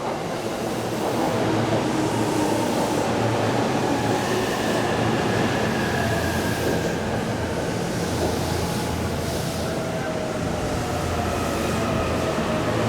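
JR East E233-series electric train pulling in, its traction motor whine gliding slowly down in pitch as it brakes, over a steady rumble of wheels on rail.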